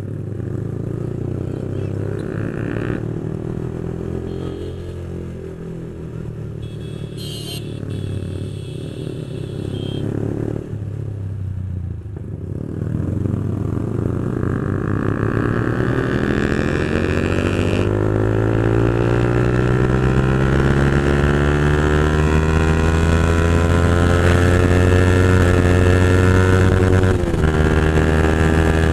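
Yamaha 155 cc single-cylinder sport motorcycle with a loud full-system aftermarket exhaust, first running at low speed, then accelerating hard from about twelve seconds in with its pitch rising steadily, and shifting up near the end.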